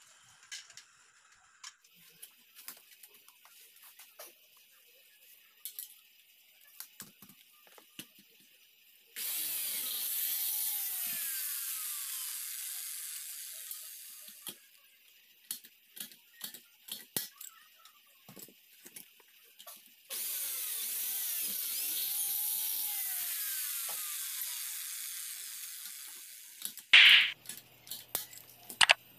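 Electric drill boring into an aluminium frame, in two runs of about five and seven seconds that start abruptly and slowly fade, with small metal clicks and taps between them. A sharp snap near the end.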